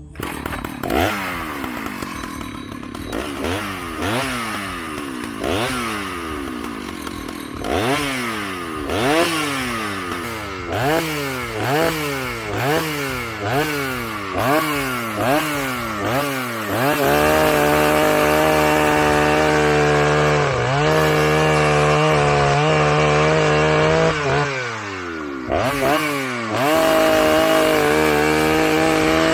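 Husqvarna 2100CD two-stroke chainsaw revving up and down about once a second, then held at high revs for several seconds with brief dips. Near the end the revs fall away for a moment and climb back up.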